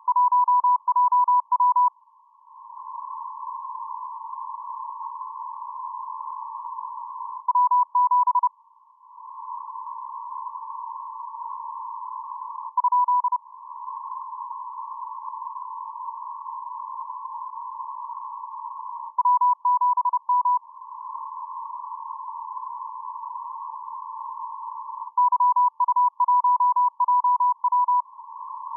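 Morse code received on an amateur radio receiver's 10 metre band: a steady beep tone keyed on and off in dots and dashes, in five short runs. Between the runs, narrow-filtered band hiss fills the gaps, swelling back up after each run ends.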